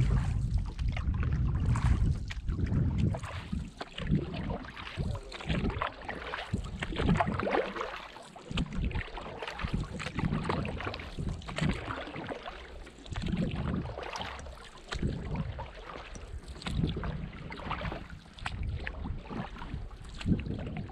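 Canoe paddle strokes dipping and pulling through lake water, with splashing and water slapping against the hull. Wind rumbles on the microphone, strongest in the first couple of seconds.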